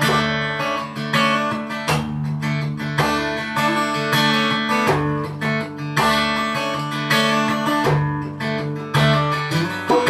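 Acoustic guitar strummed in a steady rhythm, with strong strokes about once a second and chords ringing between them: an instrumental passage of a live song with no singing.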